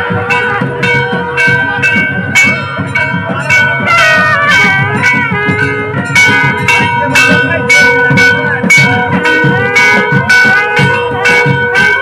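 Loud live devotional music: a held wind-instrument tone and a wavering melody over regular percussion strikes, about two a second, with crowd voices underneath.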